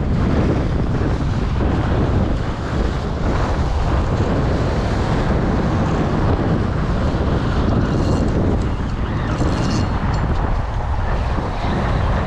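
Strong wind buffeting the microphone, over waves washing and splashing against shoreline rocks.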